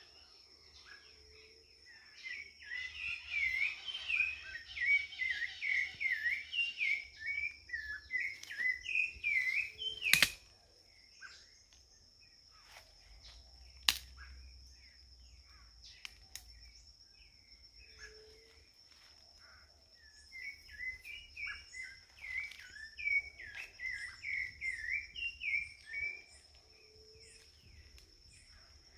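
A sabiá thrush singing two bouts of quick, warbling whistled phrases, the first from about two seconds in to about ten, the second from about twenty to twenty-six seconds, over a steady high-pitched whine. Two sharp clicks come near the middle.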